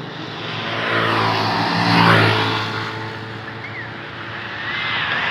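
A bus driving past close by: its engine and road noise swell to a peak about two seconds in, then fade away.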